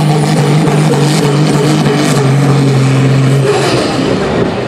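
Diesel engine of a pulling tractor running flat out under heavy load as it drags a weight-transfer sled, holding a steady pitch, then dropping off about three and a half seconds in.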